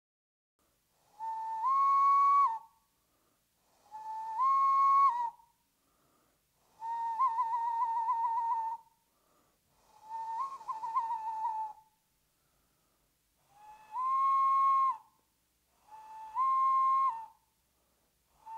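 A whistle blown in six short phrases, each holding a lower note and then stepping up to a slightly higher one before dropping back; two of the phrases in the middle break into rapid warbling trills.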